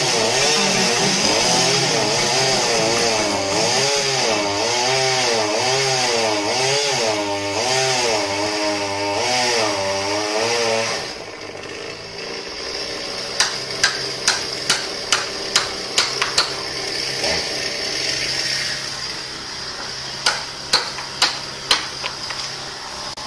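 Oleo-Mac two-stroke chainsaw cutting into a pine trunk at full throttle, its engine pitch rising and falling as it works through the wood; about eleven seconds in it drops back to a steady idle. Over the idling saw come two runs of sharp knocks, about two a second.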